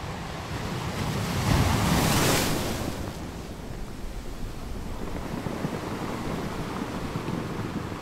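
Sea waves on a shore: a steady wash of surf, with one wave swelling up and breaking about two seconds in, then washing back.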